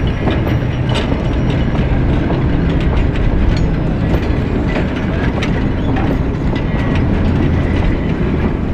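Narrow-gauge train rolling slowly past behind two 1875 steam locomotives: a steady rumble of wheels on the rails with scattered clicks and clanks from the wooden cars.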